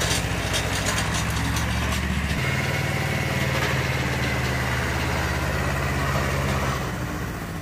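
Antonio Carraro Tigrone compact tractor running with its rotary tiller working unworked soil: a steady engine note that shifts pitch about two and a half seconds in and fades slightly near the end as the tractor moves off.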